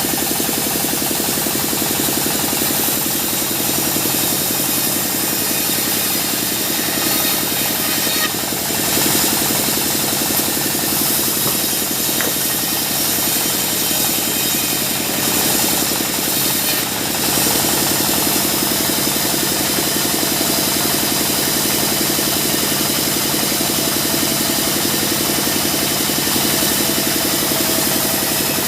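Sawmill band saw machinery running steadily, a continuous engine-like hum with a bright high hiss over it.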